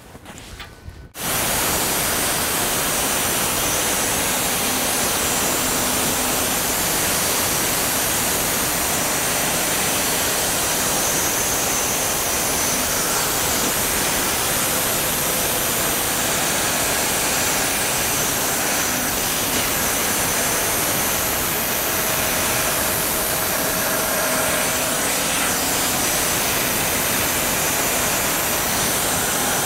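Homemade band sawmill running, its band blade sawing through a spruce log: a loud, steady noise that starts suddenly about a second in and holds even.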